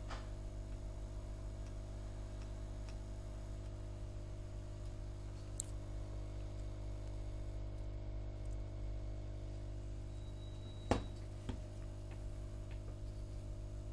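Steady low electrical hum, with a sharp click about eleven seconds in and a softer one just after.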